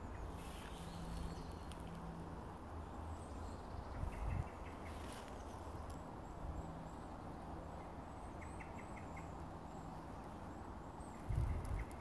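Woodland ambience: faint, high, short bird chirps and a few quick runs of ticking calls over a low rumble on the microphone. Two brief louder bumps come about four seconds in and near the end.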